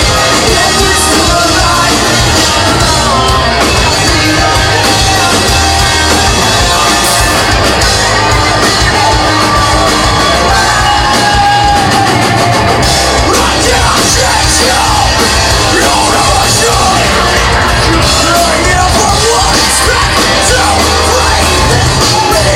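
A loud live rock band in full play: distorted guitars, bass and drums under a singer whose vocals shift between sung lines and yelled ones.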